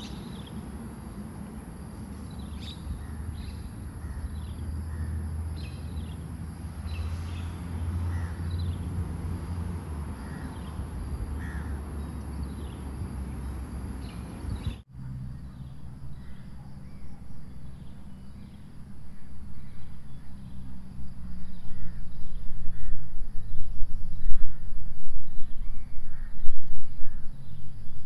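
Crickets chirping outdoors at night in many short, repeated chirps, with an abrupt cut about halfway through. In the last third a low rumble grows much louder underneath the chirping.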